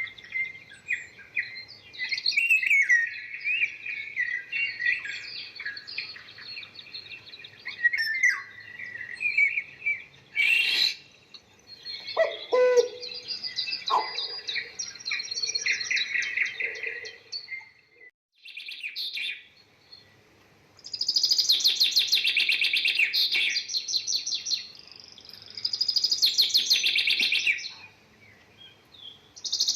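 Small birds chirping and twittering busily, then two loud, harsh chattering bursts of about two seconds each in the second half.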